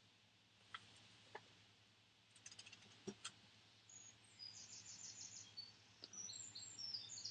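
Faint small bird chirping, quick high trills from about four seconds in, after a few soft clicks.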